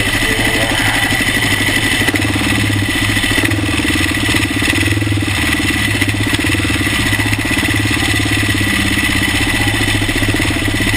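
Kawasaki KLR dual-sport motorcycle's single-cylinder engine running steadily at an even pitch, without revving, close to the fork-mounted microphone.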